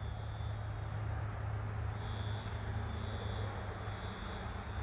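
Insects calling: a steady high trill, with a lower buzz that repeats in half-second pulses from about two seconds in, over a faint low rumble.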